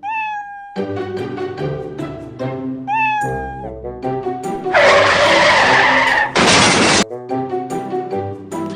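Two short cat meows, one at the start and one about three seconds in, over background music. About five seconds in comes a loud noisy rush lasting about a second and a half, then a second shorter burst.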